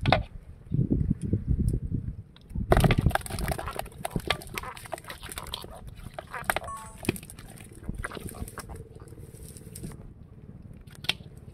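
Freshly caught tilapia and other small fish flopping in an aluminium bowl. A loud flurry of thrashing comes about three seconds in, then a run of scattered slaps and taps against the metal.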